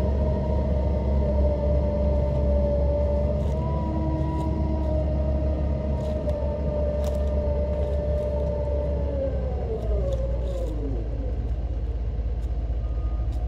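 Doosan DX140 hydraulic excavator's diesel engine and hydraulic drive running under load while it tracks over a steep slope in a travel-power test, with a low rumble and a steady whine. The whine drops in pitch about ten seconds in.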